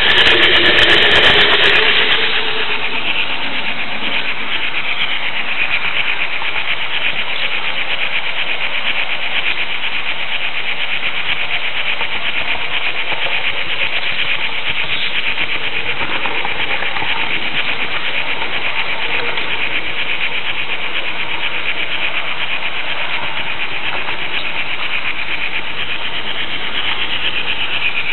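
Steady rolling rumble and rattle of a Märklin H0 model railway flat car's metal wheels running along the track, picked up through the camera riding on the car. The sound is rougher and louder for about the first two seconds as the car runs over a set of turnouts, then settles to an even rattle.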